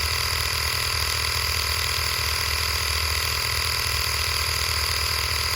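Small portable air compressor (inflator pump) running with a steady hum, pumping up the air side of a water heater expansion tank that is nearing its 60 psi target.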